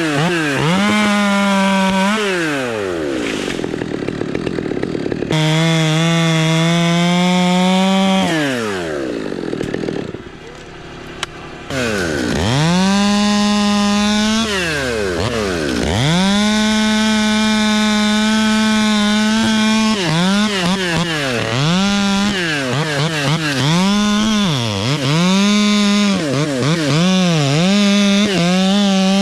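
Two-stroke chainsaw running at full throttle, dropping back to idle and revving up again several times. In the last third the revs rise and fall in quick repeated surges.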